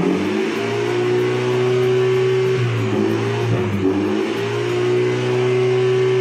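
Mini Cooper F56 engine revved through a newly fitted Armytrix aftermarket exhaust, held steady at around 3,000 rpm, dipping briefly about three seconds in, rising and holding again, then dropping off near the end. Heard from inside the cabin.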